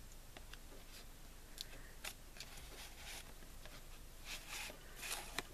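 Faint rustling and scraping of paper and card being handled, with a few louder rustles near the end as a pad of sticky notes is slid out of its paper pocket on a scrapbook page.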